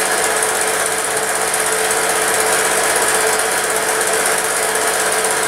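Film projector running: a steady, fast mechanical clatter of the film-advance mechanism with a constant hum.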